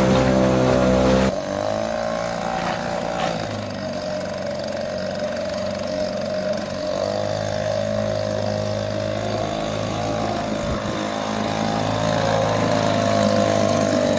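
Small Tohatsu outboard motor running steadily as it pushes a loaded inflatable boat along a narrow channel. Loud and close at first, it turns suddenly quieter about a second in, then grows louder again near the end as the boat draws closer.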